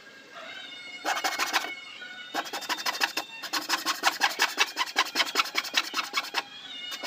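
A hacksaw blade sawing back and forth in quick rasping strokes, about three a second. The strokes start about a second in and pause briefly twice. Held background music notes are heard at the start.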